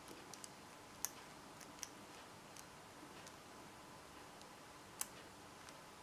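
Faint, scattered clicks of a four-wheel combination padlock's number wheels being turned a notch at a time while the shackle is held under tension. The loudest click comes about five seconds in.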